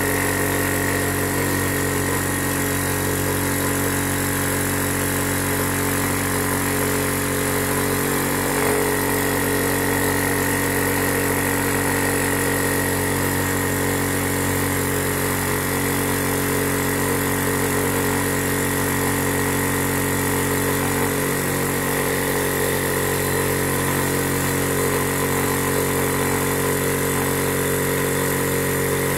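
Small high-pressure air compressor running steadily with an even motor hum, pumping up an air cylinder through a freshly resealed valve to test it for leaks.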